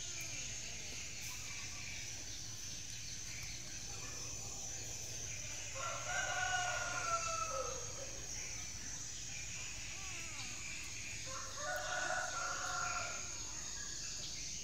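A rooster crowing twice, each crow about two seconds long with a drop in pitch at the end, the first about six seconds in and the second about five seconds later, over a steady high hiss.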